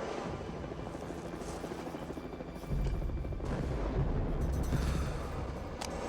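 Movie sound effects of a gasoline-soaked building catching fire and blowing up. A deep, heavy rumble starts suddenly about three seconds in and carries on to the end.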